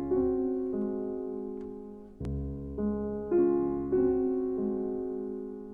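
Background piano music: gentle chords and melody notes struck every half second or so and left to fade.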